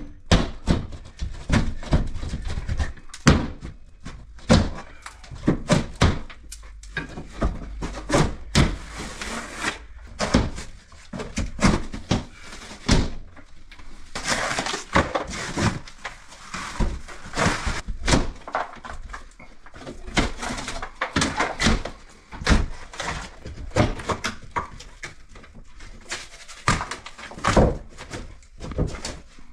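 Plasterboard being broken and torn off a timber stud wall: irregular cracks, snaps and thuds, several a second in bursts, with some scraping and crumbling between them.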